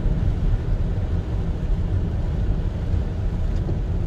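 Steady low rumble and hiss of a car driving on a rain-soaked road, heard from inside the cabin.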